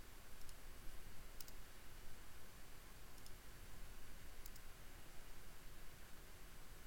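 A handful of faint computer mouse clicks, two of them quick pairs, over a steady low hum and hiss from the recording.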